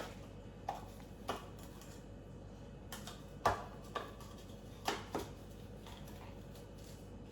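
Light plastic clicks and taps, about seven of them at uneven intervals, from handling the plastic parts of a Lomi composter's carbon filter.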